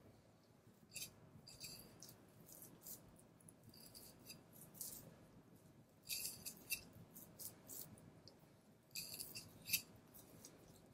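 Knife blade slicing fat and sinew away from a block of Japanese Black wagyu knuckle (shintama): quiet, crackly cutting strokes in short runs, busiest about six and nine seconds in.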